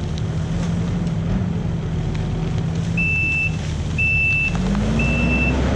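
Skid steer engine running steadily, then revving up near the end, with its reverse alarm beeping about once a second from about halfway through as the machine backs up.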